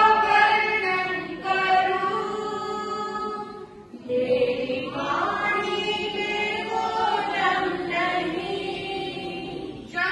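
Jain nuns singing a devotional bhajan, women's voices holding long, drawn-out notes, with a short breath break about four seconds in.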